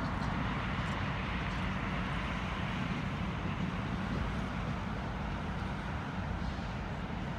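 Diesel switch engine running steadily, a continuous low rumble with no distinct knocks or horn.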